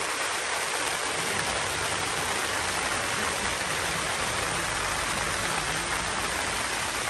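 Steady, even rushing of rain falling on and around a camping tent.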